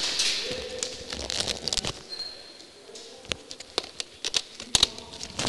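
Airsoft fire: scattered, irregular sharp clicks and snaps of airsoft guns shooting and BBs striking the walls. A hiss dies away at the start, and the clicks come in a cluster near two seconds in.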